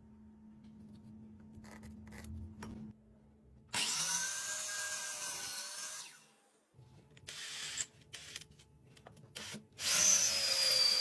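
Electric drill boring a twist bit into wood, with its motor whine: one long run about four seconds in, a few short bursts, then a louder run near the end. It is preceded by a few seconds of quieter handling with light clicks.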